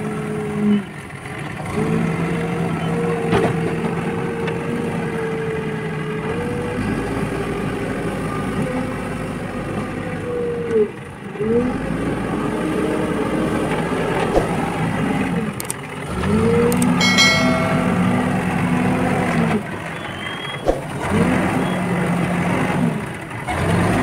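Backhoe loader's diesel engine working under load, revving up and dropping back again and again as it scoops dirt and dumps it into a trolley.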